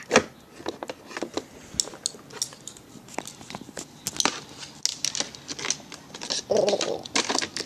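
Plastic dolls and a plastic toy car handled close to the microphone: irregular light clicks, taps and rubbing.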